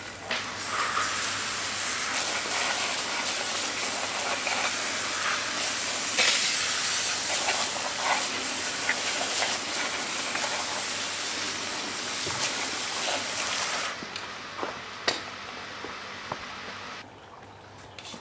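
Garden-hose spray nozzle spraying water onto a car wheel rim to rinse off the cleaning mix, a steady hiss of spray. The spray cuts off about fourteen seconds in, followed by a few light clicks.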